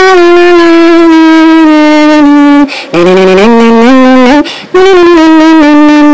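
Loud horn-like intro music. A long held note is followed by a short break, then a lower phrase stepping upward. A second break comes about four and a half seconds in, then another long held note.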